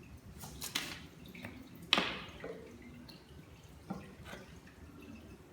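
Green chart paper rustling and crinkling as it is wrapped around a small soap box, with a few short crisp crackles and one sharper snap about two seconds in.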